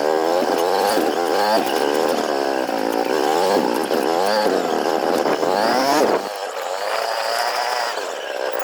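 A small vehicle engine, revving up and down over and over, then running at a steadier pitch for the last couple of seconds.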